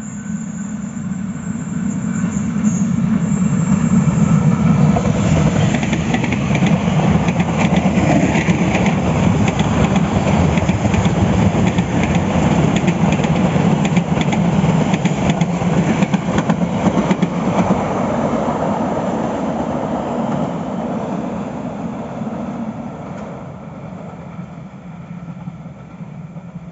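Passenger train passing: a steady rumble of wheels on rails with rapid clicking, building over the first few seconds, holding, then slowly fading away.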